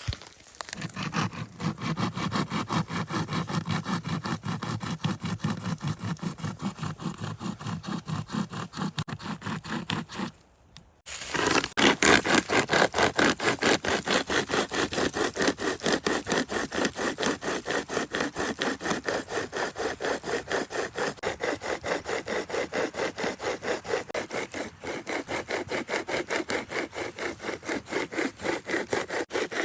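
Wood being sawn by hand with fast, even back-and-forth strokes, about three a second. The sawing stops briefly about ten seconds in, then resumes louder.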